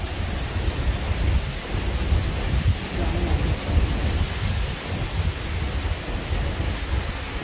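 Rain falling in a thunderstorm, a steady hiss, over a low, uneven rumble.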